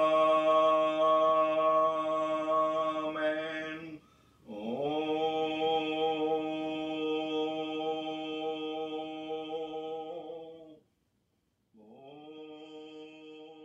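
A single voice chanting a mantra in long held notes at a steady pitch, with short breaks for breath about four seconds in and near eleven seconds. Each new note slides up into pitch, and the last one is softer.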